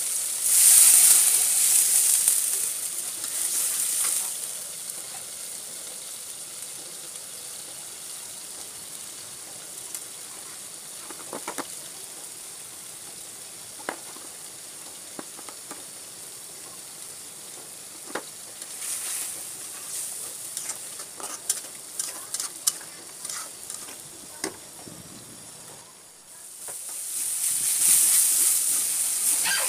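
Sliced onions frying in oil in a wok, sizzling loudly for the first few seconds, then a quieter steady sizzle broken by scattered clicks of a steel spatula against the pan. Near the end the sizzle turns loud again as the onion-and-spice masala is stirred.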